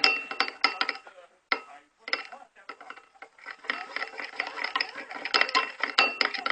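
Utensil stirring paint and glue in a bowl: quick scraping and clinking strokes against the bowl with a faint ringing, pausing briefly about a second in.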